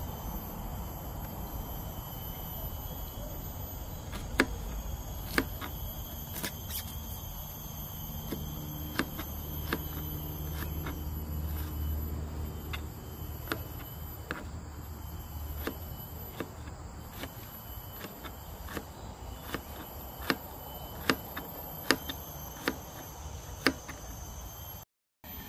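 Knife chopping on a cutting board: single sharp cuts, irregular at first, then about one a second in the second half. Crickets or other insects buzz steadily in the background, with a low rumble swelling and fading around the middle.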